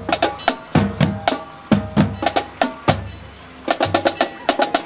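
Marching band playing on the march, led by the drumline: a quick, steady beat of sharp snare and stick clicks over bass drum hits. The drumming thins out briefly about three seconds in, then comes back as a fast run of strikes.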